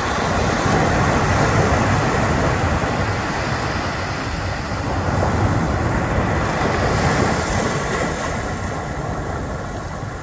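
Ocean surf washing onto a sandy beach, with wind buffeting the microphone; the noise swells a little twice.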